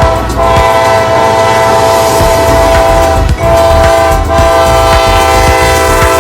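Locomotive air horn sounding a long, steady chord of several notes, broken briefly about three seconds in, over the low rumble of the train.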